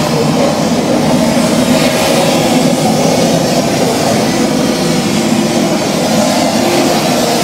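Recorded rushing water playing loudly over the exhibit's speakers: a steady, even roar with no breaks.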